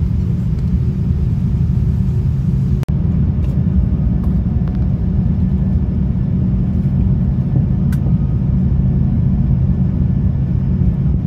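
Steady low rumble of an Airbus A330-300 airliner as heard from inside the cabin, with a brief break about three seconds in.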